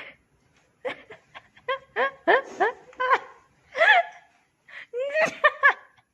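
A person laughing in quick, high-pitched bursts, in two main bouts, with one longer rising-and-falling cry in between.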